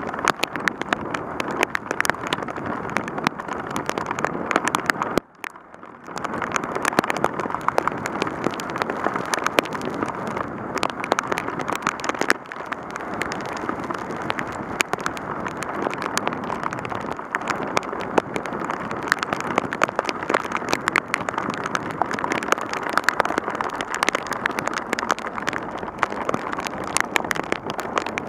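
Heavy rain: a steady rush of downpour and wet-road noise, with many sharp raindrop hits on the bike-mounted camera's housing. It dips briefly about five seconds in.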